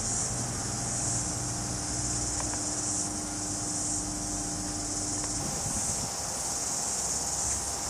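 Steady, high-pitched chirring of crickets, with a faint low hum and a thin steady tone underneath that stops about five and a half seconds in.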